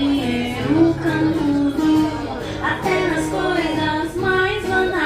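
A singer performing a pop song to strummed acoustic guitar, the sung melody held in long notes over the guitar.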